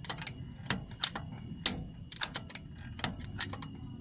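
Irregular sharp metallic clicks and taps, about a dozen, from hand tools working on the engine while it is turned over by hand during a valve-clearance adjustment.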